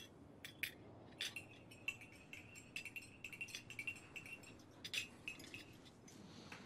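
Faint, light clinks of Turkish tea glasses and teaspoons being handled, a dozen or so over about five seconds, several leaving a brief glassy ring.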